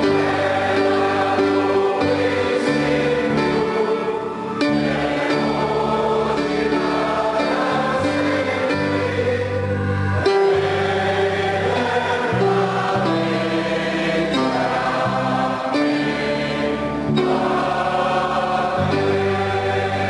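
Congregation singing a hymn together with instrumental accompaniment, in held chords that change every second or two.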